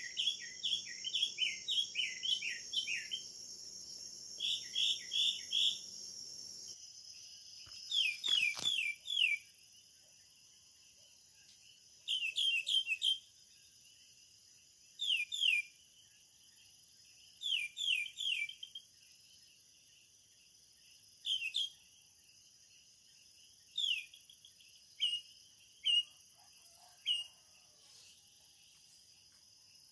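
Birds calling in short runs of quick falling chirps, repeated every couple of seconds, over a steady high-pitched drone of insects in tropical rain forest.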